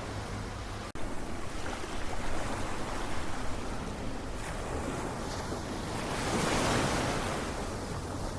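Ocean waves washing in a steady surf, with one wave surging louder about six to seven seconds in. The sound cuts out for an instant about a second in.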